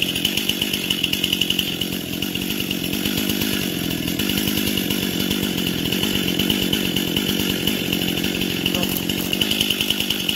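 Stihl 261C two-stroke chainsaw running steadily, its engine note holding at a fairly even pitch and level.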